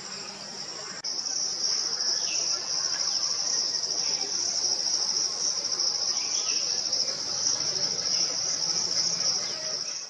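Steady, high-pitched insect chorus droning without a break, jumping louder about a second in. Two faint, short falling chirps sound over it.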